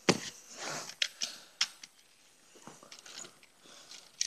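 Handling noise: rustling with several sharp clicks as the phone is moved with its microphone against a hand or cloth.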